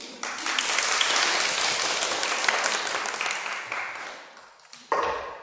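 Audience applauding, the clapping swelling at once and dying away after about four seconds. Near the end a single ringing note sounds.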